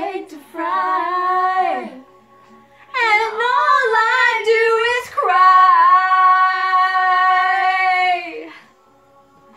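A woman and a young girl belting a dramatic sung duet over a karaoke-style backing track: three phrases, the last a long held note that fades out about eight and a half seconds in, leaving only the quiet accompaniment.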